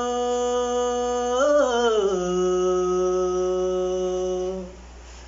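A male voice holds a long, unaccompanied sung note in a Deuda folk song. Partway through, the note swells and slides down to a lower pitch, which is held and then fades out near the end.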